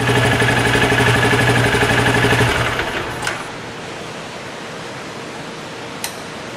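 Benelli Imperiale 400's single-cylinder engine idling, then stopping about two and a half seconds in. A steady hiss is left, with a sharp click near the end.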